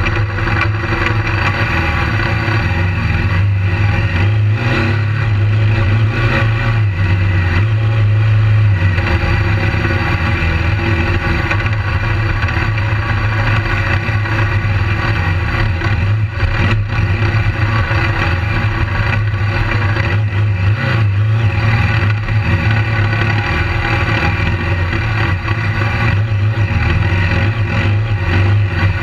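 BMW GS adventure motorcycle's engine running under load on a dirt track, its note rising and falling with the throttle.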